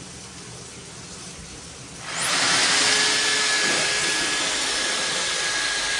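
Hand-held electric drain-cleaning machine switched on about two seconds in: its motor spins up with a rising whine, then runs steadily with a loud hiss, turning the cable inside a kitchen sink drain that is caked solid at an elbow fitting.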